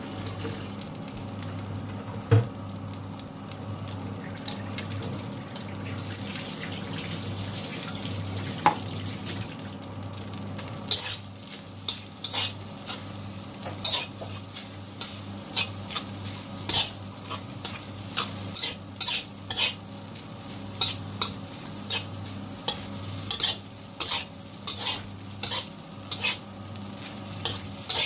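Fried rice with shrimp sizzling in a wok while a metal spatula stirs and tosses it. There is a single sharp knock a little over two seconds in; from about eleven seconds in the spatula scrapes the wok in short quick strokes, one or two a second.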